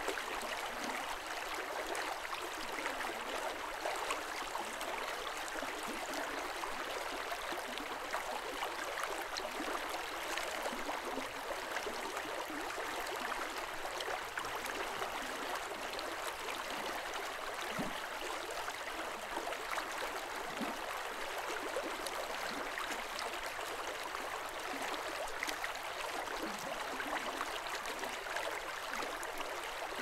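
Snowmelt mountain stream flowing steadily: a constant rushing babble with many tiny splashes.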